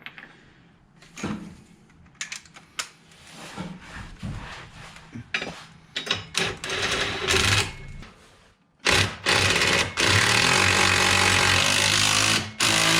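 Socket and bolt clinks, then a power tool with a 17 mm socket driving in the differential brace bolts: a few short bursts, then one long run of about three and a half seconds near the end.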